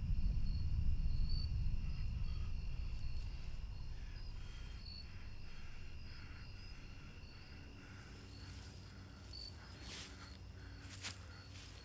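Crickets chirping in a steady chorus of high trills. A low rumble fades out over the first several seconds, and a few short rustles come near the end.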